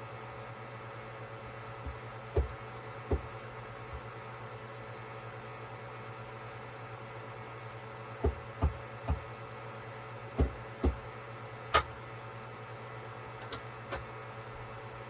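A steady low hum with about ten short, sharp clicks scattered through it, several close together near the middle.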